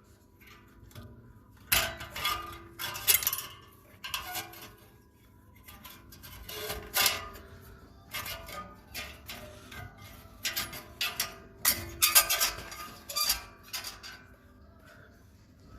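Irregular metallic clinks and clanks of a wrench on a nut as a fastener is unscrewed, some strikes leaving a brief metallic ring.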